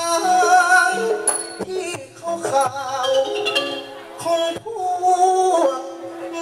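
Likay singing: a voice through a microphone holds long, wavering melodic lines, pausing briefly between phrases, over a Thai classical ensemble led by a ranat ek xylophone with percussion strokes.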